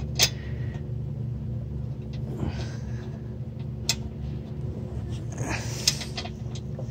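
A steady low mechanical hum, with a few sharp clicks and some rustling as tools and bolts are handled during hand assembly work.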